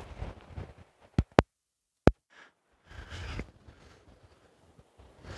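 Wind and surf noise on an open beach, broken by three sharp clicks and short stretches of dead silence where the recording is cut, then wind and surf again.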